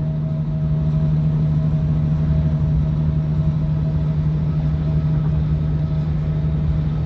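A vehicle engine idling: a steady low hum with a fainter higher tone above it, unchanging throughout.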